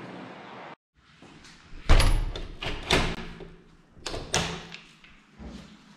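A front door being handled: several sharp clunks and bangs of the door, handle and latch, the loudest about two seconds in.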